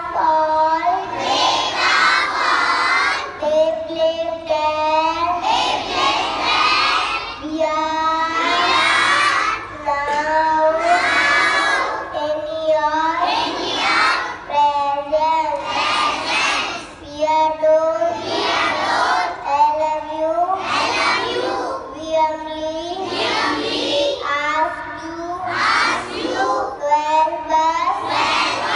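A group of young children reciting a prayer together in unison, in a sing-song chant of repeated phrases with held notes.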